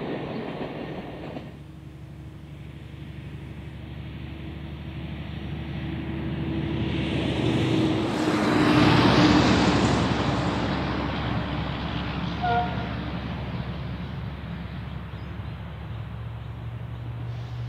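Heritage rail motor 402's twin 6-71 diesel engines heard from a distance as the railcar approaches, a steady low engine drone under a haze of noise. A broad swell of noise rises and falls in the middle. The first second or so is the tail of a louder, noisier sound before the shot changes.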